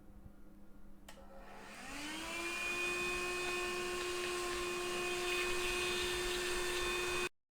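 Small vacuum cleaner switched on with a click, its motor rising in pitch to a steady whine. The sound cuts off suddenly near the end.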